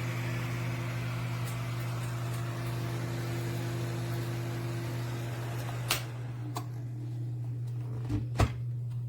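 A small electric fan runs with a steady low hum and a soft airy hiss. The hiss drops away about six seconds in, and a few sharp clicks or knocks follow, the loudest about eight seconds in.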